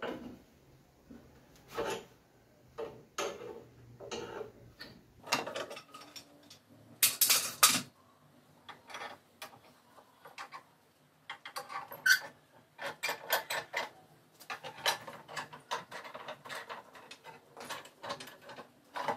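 Steel bar clamps on a wooden panel glue-up being worked by hand: screws turned and jaws shifted, giving irregular metal clicks and clanks, loudest about seven seconds in.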